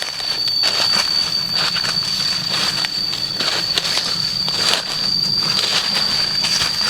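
Tropical forest cicadas droning in one steady high-pitched tone, with irregular crunches of footsteps on the forest floor.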